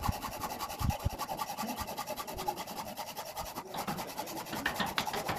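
Rapid, evenly repeated rasping strokes of a hand tool worked against the steel sliding gate's frame, several strokes a second.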